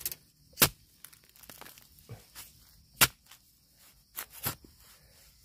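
A few sharp crunching cracks at uneven intervals, with softer crackling between them: dry bamboo litter, twigs and soil being crushed or struck in a bamboo thicket.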